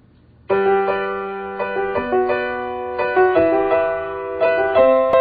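Background piano music: a slow melody of held notes, starting about half a second in.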